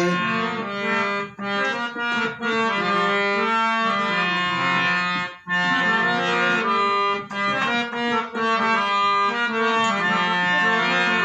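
Harmonium playing a melodic instrumental interlude of a devotional bhajan over a steady drone, the sustained reedy notes changing in a phrase, with brief breaks about a second and five seconds in.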